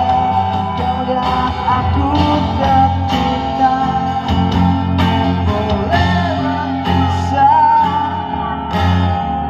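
Live acoustic band music: a man singing into a microphone over a strummed acoustic guitar, with a steady bass line underneath.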